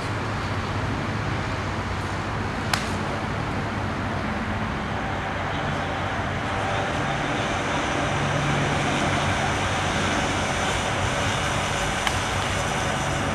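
Steady traffic noise, with two sharp clacks of training kriegsmessers striking each other, a few seconds in and again near the end.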